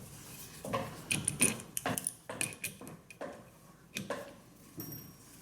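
Irregular light clicks and taps of metal hand tools and fixings being handled and knocked against each other.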